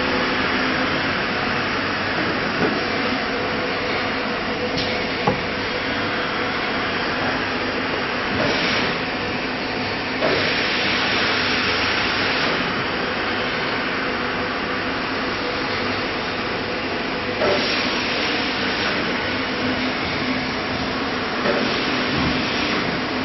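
Acctek AKM1325C CNC router running, its spindle giving a steady whine under a continuous machine noise, with several louder hissing surges of a second or two.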